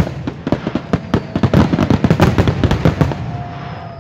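Fireworks display: a rapid volley of aerial shell bursts and crackling, many sharp bangs a second, thinning out about three seconds in.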